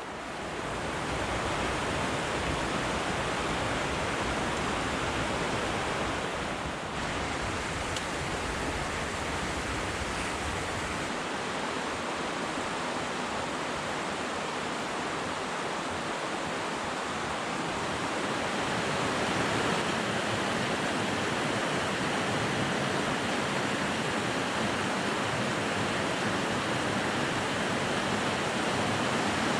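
Steady rush of water from a fast-flowing mountain stream, swelling about a second in and then holding even.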